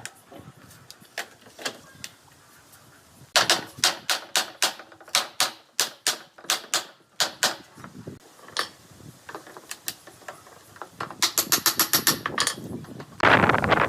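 Sharp knocks and taps, as of hammering on wood, in quick runs: a dense run a few seconds in and a faster rattle near the end. A loud rushing noise starts just before the end.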